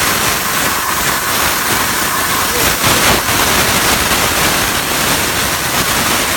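CNC plasma cutter's torch cutting metal: a loud, steady hiss.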